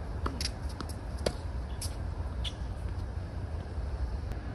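Tennis ball hit by racquets and bouncing on a hard court: several short sharp pops, the loudest about a second in, over a steady low rumble.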